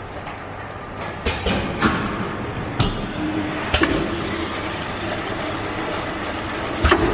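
Automatic bottle filling line running, its filling machine and conveyor giving a steady mechanical hum broken by irregular sharp clicks, clinks and knocks.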